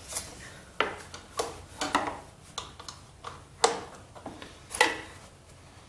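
A socket ratchet being worked in short strokes on a starter mounting bolt gives a series of sharp metal clicks, unevenly spaced about half a second to a second apart.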